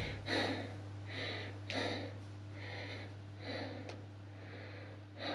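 A man breathing hard and rhythmically from exertion during a squat exercise, a little more than one breath a second, over a steady low hum.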